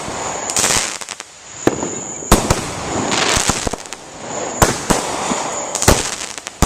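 Consumer fireworks going off: a series of sharp bangs, some in quick pairs, with stretches of crackling between them.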